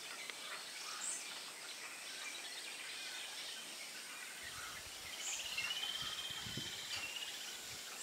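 Outdoor birdsong: scattered high chirps from small birds, with one drawn-out, fast-pulsing high trill lasting about a second and a half a little past the middle.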